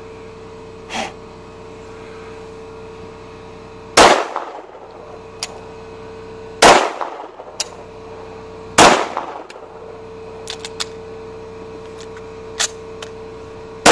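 Husqvarna M/40 (Swedish-built Lahti) 9mm pistol firing: three shots about four, six and a half and nine seconds in, with a fourth at the very end, and light clicks from the action between them. The pistol is cold-soaked from a night outdoors near 0 °F, and its weak recoil spring leaves the slide struggling to go into battery.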